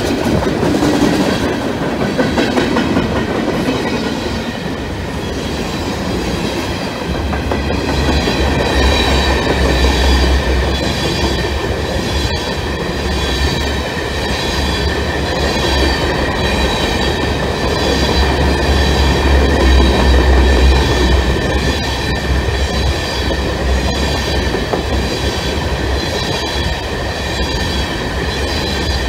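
Freight train cars, tank cars then covered hoppers, rolling past at speed: wheels clattering and rumbling on the rails, heavier from about seven seconds in, with a steady high-pitched ringing over it.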